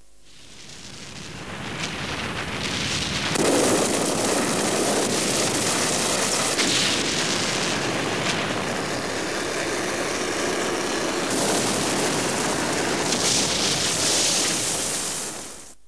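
Volcanic eruption sound: a loud, dense rumble and rush of noise that builds over the first three seconds, holds with a few surges, and dies away just before the end.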